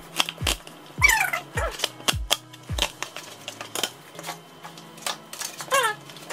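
Background music with a deep kick drum about twice a second and short falling synth notes. The drum drops out about three seconds in, leaving held bass notes. Light clicks and taps sound over the music throughout.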